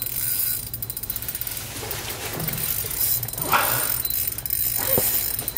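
Fishing reel ratcheting and clicking in bursts as line is worked against a hooked lake trout at the ice hole.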